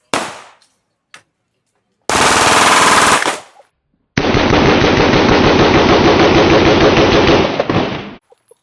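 Rapid gunfire. One shot comes at the start, then a burst of rapid fire lasting about a second and a half, then, after a short pause, a sustained run of very fast shots lasting about four seconds that stops suddenly.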